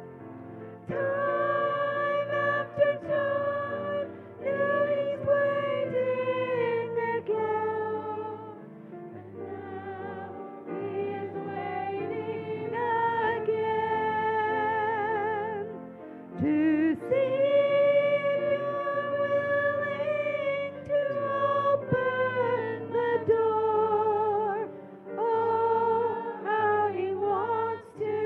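A hymn sung to instrumental accompaniment, the voice holding long notes with vibrato. The phrases break off about a third and two-thirds of the way through.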